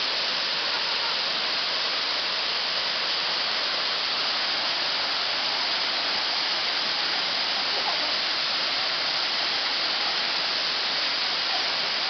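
Waterfall pouring onto rocks and into its plunge pool close by: a steady rushing hiss of falling water.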